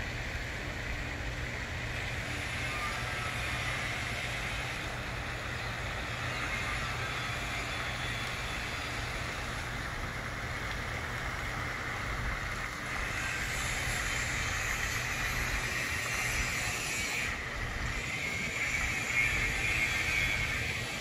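Wind buffeting the phone's microphone as a steady low rumble, over a constant outdoor hiss.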